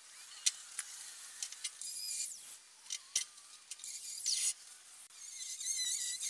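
Angle grinder grinding through the weld between a Dana 44 inner C knuckle and the axle tube, in short passes with brief gaps. A high, wavering whine comes near the end as the disc bites into the steel.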